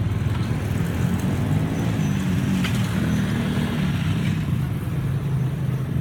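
Street traffic: motorcycle engines running close by, their low hum wavering up and down in pitch.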